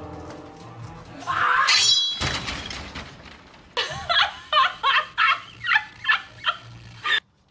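A person laughing in a run of about eight quick, pitched bursts in the second half, cut off suddenly near the end. A loud, harsh burst of noise comes about a second and a half in.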